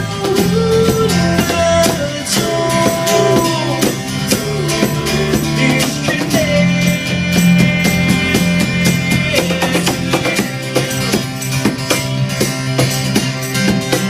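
Live acoustic rock band playing an instrumental passage: guitar over a steady drum beat, with held and gliding melodic notes.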